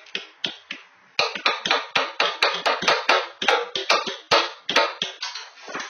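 Hammer striking a wooden board in quick repeated blows, about four a second, starting about a second in after a few lighter knocks.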